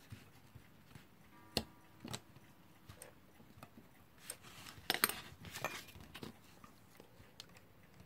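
Small metal clock parts clicking and rubbing as they are handled and fitted onto an alarm clock movement's cast metal frame. There is a sharp click with a brief ring about one and a half seconds in, another click just after, and a cluster of clicks and scraping around five seconds in.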